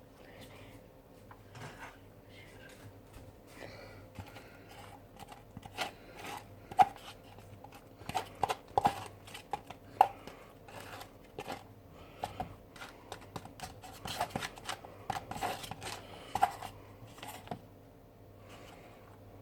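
Handling of a container of freezer-chilled homemade slime mixture: irregular clicks, taps and crinkling, with two sharper knocks about 7 and 10 seconds in.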